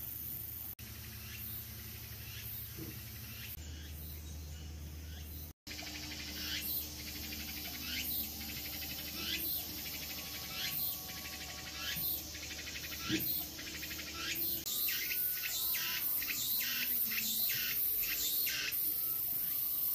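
Insects calling in the trees: a steady high shrill with many short repeated chirping calls that come thicker and faster in the second half.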